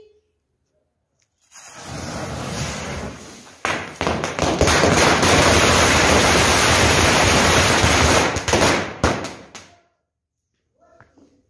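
A tray of about 600 small firecrackers, their fuses linked in one line, going off together. It starts with about two seconds of hissing. Then a dense, continuous rattle of bangs runs for about five seconds and thins to a few separate pops before it stops.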